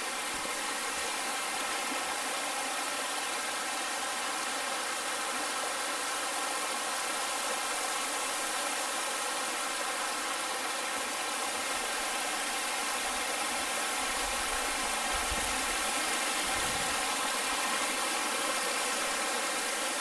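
Rushing water of a rocky mountain stream, a steady, even rush throughout, with a few soft low bumps about three-quarters of the way through.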